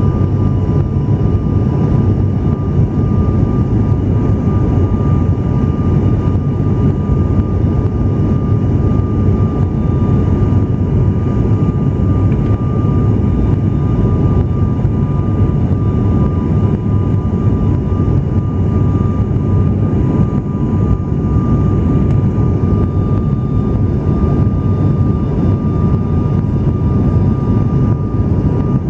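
Cabin noise of a turboprop airliner in flight: a steady, loud drone from the engines and propellers, with a thin steady whine above it.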